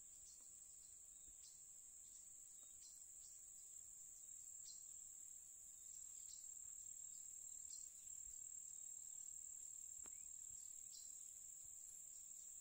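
Faint, steady high-pitched trilling of insects such as crickets, with a short chirp repeating at uneven intervals of under a second.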